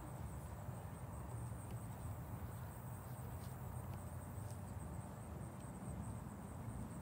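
Faint, steady low rumble of outdoor background noise, with a few faint light clicks in the middle.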